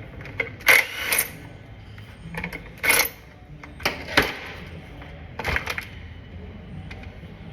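Several sharp metallic clinks and rattles spread over a few seconds: small metal parts or tools being handled while a small-engine fuel system is taken apart.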